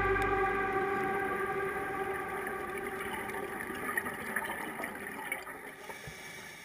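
Slow background music with held chords fading out; the bass drops away about a second in and the rest fades steadily.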